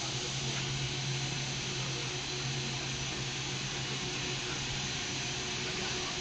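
Industrial furnace equipment running continuously: a steady hiss with a constant low hum underneath.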